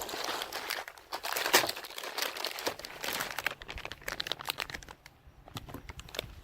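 Crinkling and rustling of the emergency food kit's packaging as it is handled, densest in the first three seconds and thinning to scattered crackles after.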